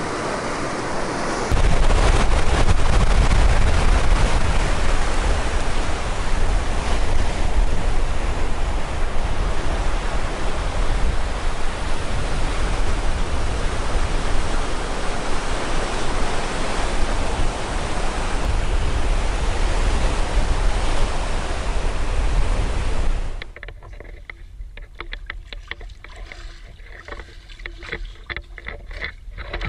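Sea surf washing over a rocky shore: a loud, steady rushing with a heavy low rumble. About 23 seconds in it cuts to quieter splashing and sloshing water.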